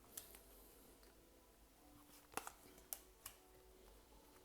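Near silence: room tone with a few faint, sharp clicks, about four spread through the pause.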